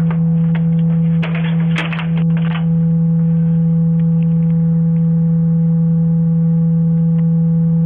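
A loud, steady low hum with fainter higher tones held over it, crackling and clicking for the first two and a half seconds and then running on unbroken.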